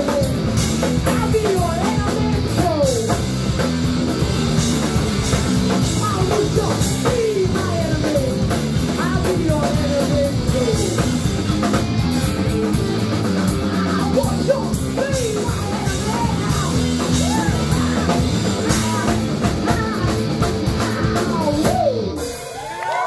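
Punk rock band playing live at full volume: drum kit, bass, electric guitar and shouted vocals. The song stops abruptly about a second before the end, and the crowd starts to cheer.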